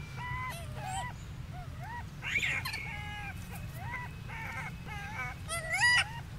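Golden snub-nosed monkeys calling: a run of short, high, bending calls, about two a second, with a louder call about two seconds in and a louder rising call near the end, over a steady low rumble.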